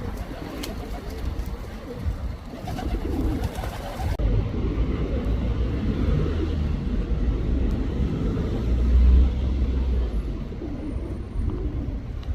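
Male pigeon cooing repeatedly to a female, over a steady low rumble that swells near the middle.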